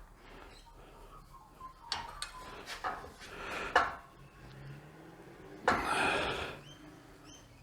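Metal parts being handled and knocked about: several sharp clanks, then a longer scraping clatter about six seconds in.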